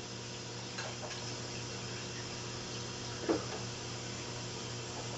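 Steady low hum and hiss of room background noise, with a few faint ticks about a second in and one brief, louder knock about three seconds in.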